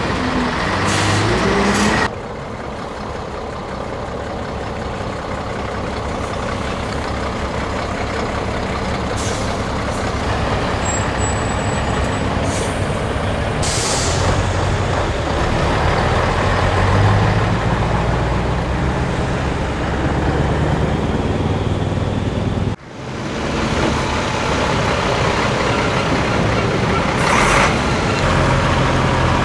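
Classic Scania trucks' diesel engines running as the trucks drive slowly past one after another, with several short hisses of air brakes.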